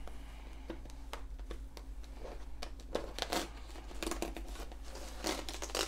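Perforated cardboard door of an advent calendar box being picked at and torn open by fingertips: scattered light clicks and scrapes, with a busier run of tearing and rustling about three and four seconds in.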